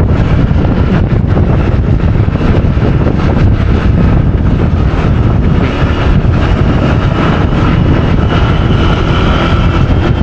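A motorbike running at road speed, with loud wind rush on the rider's microphone over the engine's steady drone.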